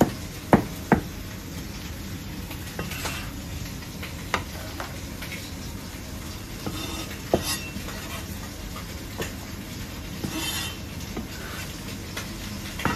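Scattered single knocks and scrapes of a Chinese cleaver on a plastic cutting board as chopped celery is gathered and pushed into a steel bowl, with a louder clatter near the end, over a steady background hiss.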